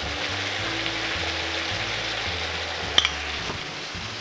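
Sliced peppers, carrots, onions and tomatoes sizzling steadily in vegetable oil in an uncovered frying pan, under soft background music. A single sharp click sounds about three seconds in.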